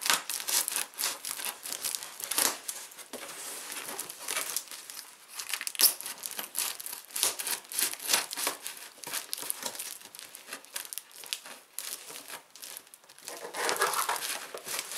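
Scissors cutting through clear plastic packing tape on a cardboard box: irregular crinkling and crackling of the plastic, denser and louder near the end.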